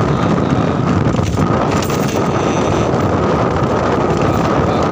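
Wind buffeting the microphone of a moving motorcycle, steady and loud, over the bike's engine and road noise, with a faint steady high whine.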